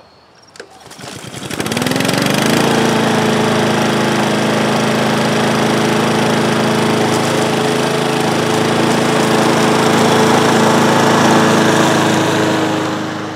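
Honda four-stroke walk-behind lawn mower engine starting up: it catches about a second in, speeds up to steady running speed within a couple of seconds and then runs steadily. This is its first start on a replacement deck after an engine swap.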